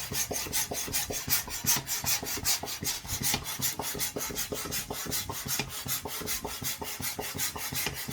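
Rapid rasping rubbing against an inflated rubber balloon, about seven strokes a second, kept up steadily.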